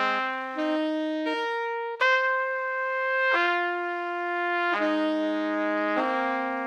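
Music: slow, held brass chords, each chord changing after one to two seconds.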